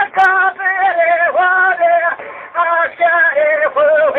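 Solo voice singing a kaside, a Turkish religious hymn, in long held notes with wavering melismatic turns, the phrases broken by short pauses.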